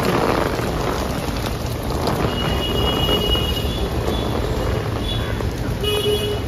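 Steady rain falling on a wet city street, with a low rumble of traffic and wind on the microphone.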